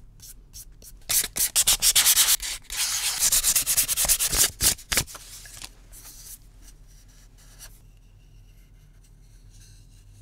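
240-grit sandpaper rubbed by hand over bare wood, in fast back-and-forth scraping strokes. It is loud and dense from about a second in for some four seconds, then thins to lighter, scattered strokes and stops at about eight seconds.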